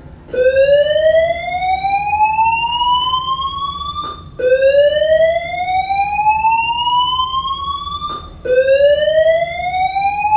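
School fire alarm voice-evacuation system sounding its slow-whoop evacuation tone: a buzzy tone that rises steadily in pitch over about four seconds, sounded three times back to back. It is the signal to leave the building.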